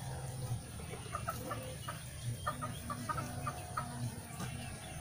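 Birds calling in a run of short, separate notes, several a second, from about a second in until near the end. A low steady hum lies underneath.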